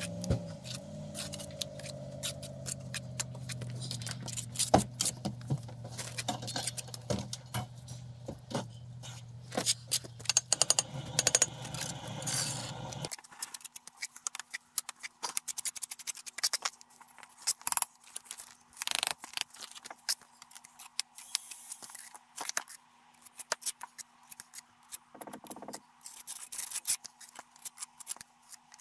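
Hand tools scraping and clicking against stone and mortar in quick, irregular strokes. Under them runs a low, steady hum that stops abruptly about halfway through.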